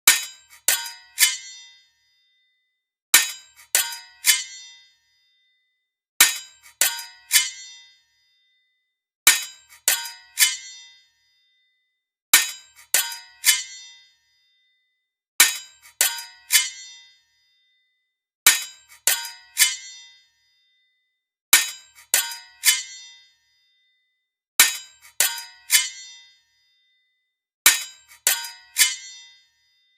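Sword blades clashing: a quick run of about four ringing metal-on-metal strikes, each fading out, repeated as the same loop roughly every three seconds.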